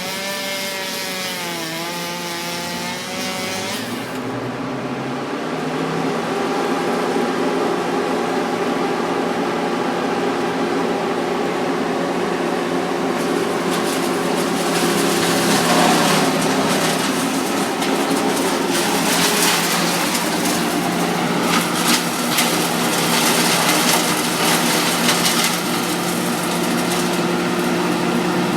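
Two-stroke chainsaw cutting through river red gum timber: the engine pitch swings up and down at first, then holds steady under load with a rough rasping of the chain biting wood that grows stronger through the middle.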